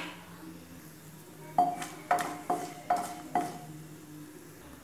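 A metal spoon clinking five times in quick succession against a non-stick kadai, each clink ringing briefly at the same pitch.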